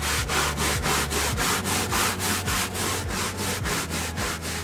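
A hand scrubbing brush scrubbed back and forth across a boat's deck, a rasping stroke about four times a second.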